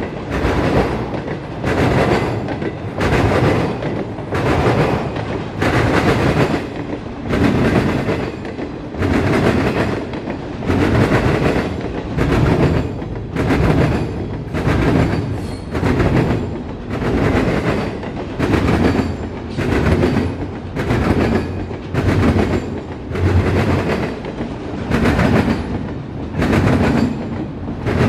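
Steel wheels of a double-stack intermodal train's well cars rolling past and clattering over rail joints, a rhythmic clickety-clack that swells about once a second as each set of trucks goes by.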